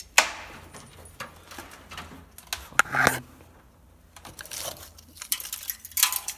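Loose steel pieces knocking and clinking as they are handled. A sharp knock comes just after the start, two ringing clinks near three seconds in, and a run of lighter clicks near the end.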